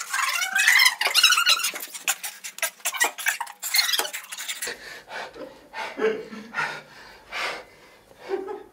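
Rapid high-pitched squeaking and rubbing for the first four and a half seconds, then quieter scattered rustling and breathy bursts.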